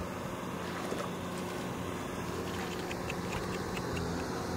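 A tractor engine running steadily in the background with an even, low drone.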